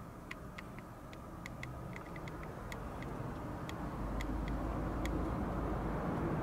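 Ambient noise: a low rumble that grows louder about four seconds in, with scattered light ticks in the first few seconds.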